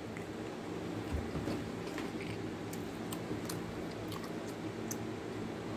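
Faint, scattered small clicks and ticks over a steady low hum.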